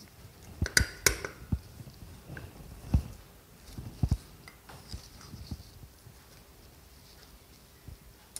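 Small metal carburettor parts clicking and knocking as the throttle linkage is slid into place on an SU carburettor body. Two sharp clinks about a second in, more knocks around three and four seconds in, then only faint ticks.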